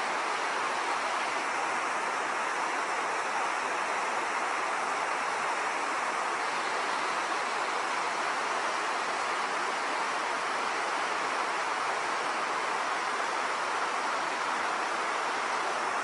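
River rapids: white water rushing over rocks in a steady, unbroken rush.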